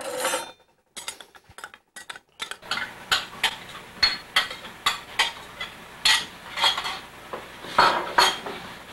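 A metal spoon clinking and scraping against a bowl and a metal pan: a run of sharp, uneven taps and clinks. A faint steady hum runs underneath from about three seconds in.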